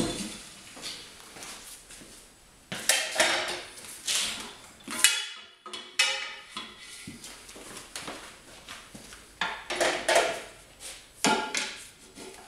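Steel tire bar and tire iron clanking and scraping against a manual tire changer's duckbill head, center post and rim as a tire bead is levered over the rim. Several separate sharp metal knocks, some with a brief ring.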